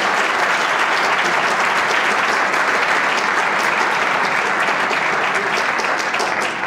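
Large audience applauding steadily, a dense patter of many hands clapping that starts to die away right at the end.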